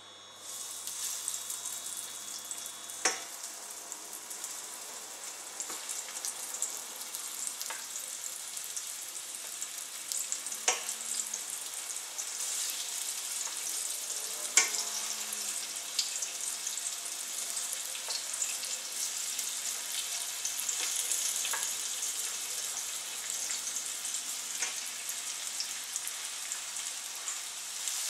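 Flour-dredged chicken pieces sizzling in hot oil in a stainless steel pan, the sizzle starting as the first piece goes in, with a few sharp clicks of tongs against the pan as more pieces are laid in.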